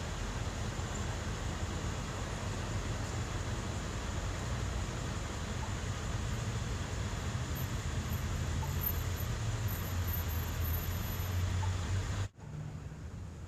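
Steady low vehicle rumble. It cuts out abruptly about twelve seconds in and comes back a little quieter, with a changed tone.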